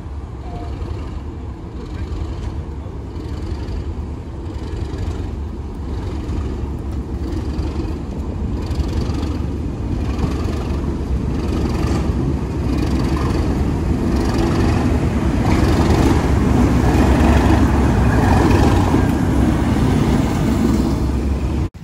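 Class 37 diesel locomotive's English Electric V12 engine running as the locomotive approaches and draws alongside, its low rumble growing steadily louder. The sound cuts off suddenly near the end.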